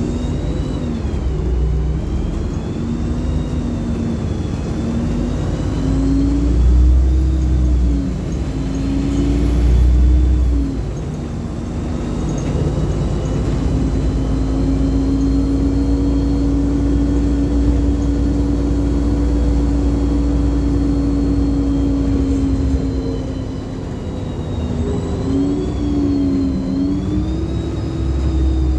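LiAZ-5292 city bus heard from inside the cabin while driving: a low engine drone with a whine that climbs and drops several times as it pulls away and changes gear, then holds steady while cruising, and dips and climbs again near the end.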